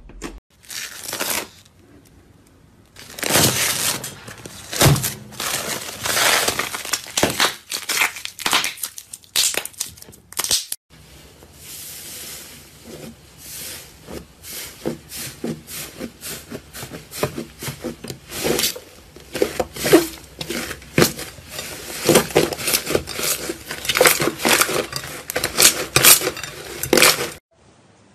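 Slime squeezed, stretched and pressed by hand, giving dense runs of crackling and popping clicks as trapped air bubbles burst. There is a short silent gap about eleven seconds in.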